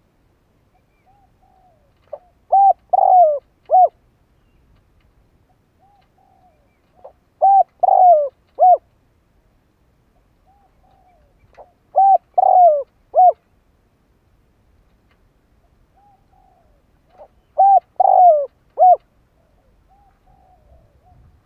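Spotted dove cooing its song, four phrases about five seconds apart, each a soft low note followed by three or four loud coos.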